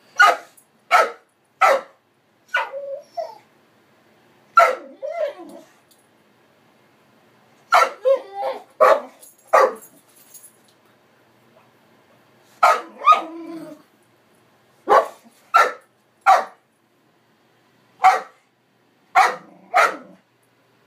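A young boxer dog barking: short sharp barks in irregular runs about a second apart, with pauses of a few seconds between runs.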